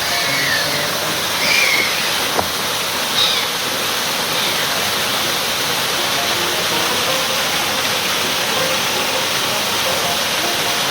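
Steady rush of running or splashing water, with a few short high chirps about one and a half and three seconds in and a single click midway through them.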